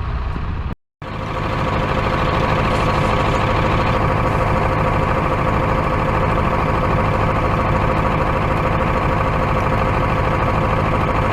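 A truck engine idling steadily, with a constant high whine on top. The sound cuts out briefly about a second in, then runs on unchanged.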